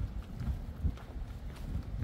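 Footsteps of a person walking on wet pavement, about two steps a second, with scattered light taps of rain.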